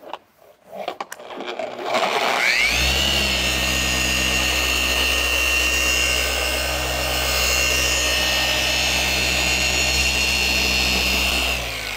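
Handheld dual-action orbital polisher spinning up about two seconds in with a rising whine, then running steadily under load as it cuts paint with a coarse compound on a pad, and winding down near the end. This is the first, coarse compounding step on oxidised single-stage paint.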